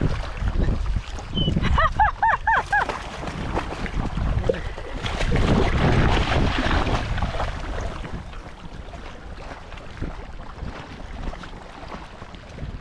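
Shallow seawater splashing around a wading dog's legs, with wind buffeting a microphone held just above the water's surface; the splashing is heaviest around six seconds in. About two seconds in there is a quick run of five short, high chirping notes.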